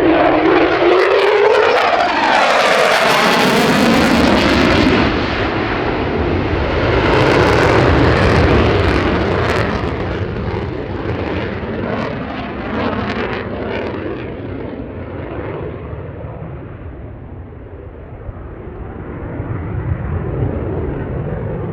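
Jet noise from a Lockheed Martin F-35A Lightning II's single Pratt & Whitney F135 turbofan as it flies past, loudest in the first half with sweeping shifts in pitch, then fading away and swelling slightly again near the end.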